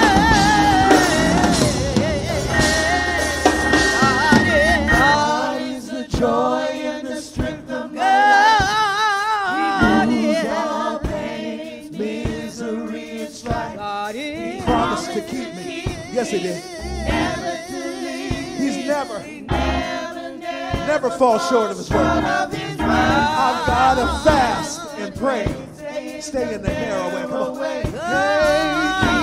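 A small gospel choir singing. One voice with a wide vibrato stands out over the group. The sound is fuller and louder for the first five seconds or so, then thins out.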